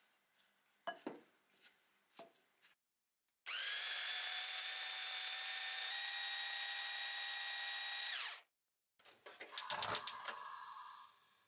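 Small electric food chopper whirring steadily for about five seconds and winding down as it stops, puréeing boiled mash. Before it, a few knocks of a wooden masher against a glass bowl; near the end, a clatter of clicks and a thump as the mash is scraped into a pan.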